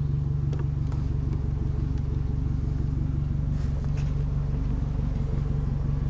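Boat engine idling steadily, an even low hum.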